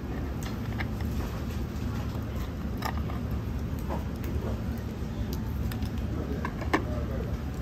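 Restaurant ambience: a steady low hum with background voices and a few sharp clicks, the strongest about three seconds in and near the end.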